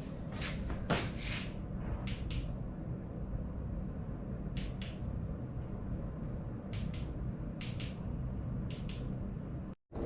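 Pairs of short clicks at irregular intervals, from the turn-signal switch of an electric scooter being flicked back and forth, over a steady low hum.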